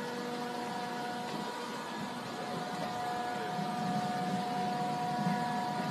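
Steady hum of a boat's engine running, with a few faint steady tones above it.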